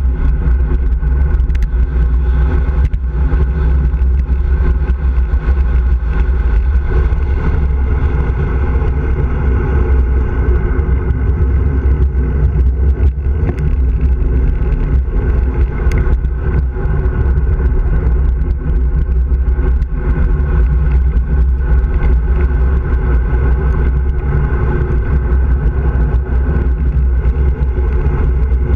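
Wind buffeting a handlebar-mounted camera on a bicycle descending at speed: a loud, steady rumble, with tyre and road noise and many small knocks from the bike going over bumps.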